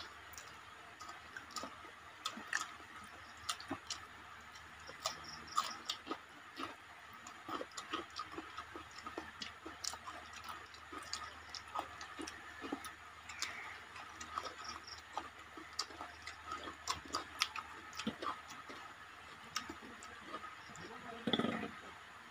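People eating rice and curry with their hands: faint, irregular small clicks and smacks of chewing and fingers working the rice. A brief, slightly louder sound comes just before the end.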